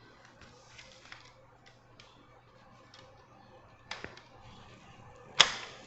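A tripod light stand being handled: scattered light clicks and taps, then a sharp knock about four seconds in and a louder one near the end, the last with a brief ring.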